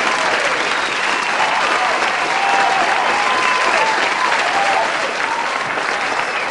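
Football stadium crowd making a dense, steady roar of cheering and clapping, with many pitched calls rising and falling above it.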